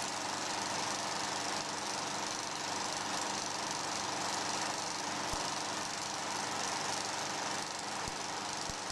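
A steady mechanical running noise with a faint hum, and a few soft clicks scattered through it.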